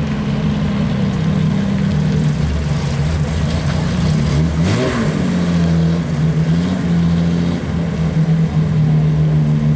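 Car engine idling steadily, with one quick blip of the throttle about halfway through that rises and falls back in pitch.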